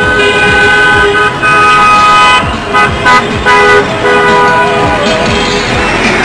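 Several car horns honking together from a passing convoy, long held tones overlapping one another, with a run of short toots near the middle.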